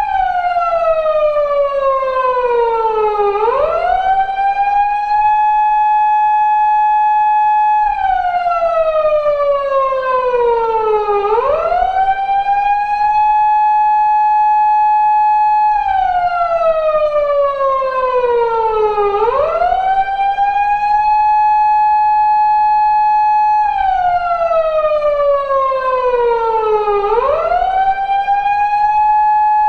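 Japanese police car siren of the 2000s type used on 170- and 180-series Toyota Crown patrol cars, reproduced as a sound effect. It holds a steady high tone, then falls slowly over about three seconds and swoops quickly back up, repeating every eight seconds, four times over.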